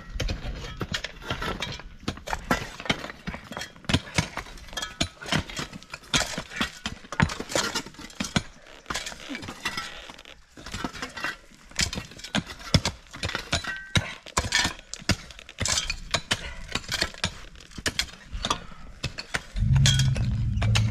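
A rapid, irregular clatter of small clicks and knocks. Near the end a vehicle engine comes in with a steady low running note.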